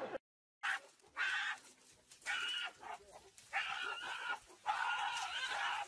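Gorillas screaming while fighting: a series of about five shrill screams, each half a second to a second long, with short gaps between them.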